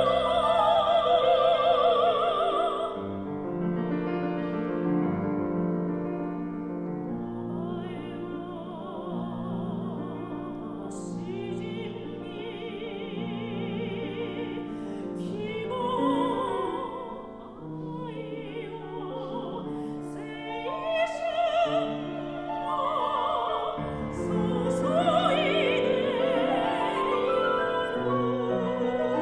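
Classical soprano singing with vibrato to grand piano accompaniment, an art song. She holds a long note at the start, the piano carries on for a few seconds with the voice in and out, and the singing builds again towards the end.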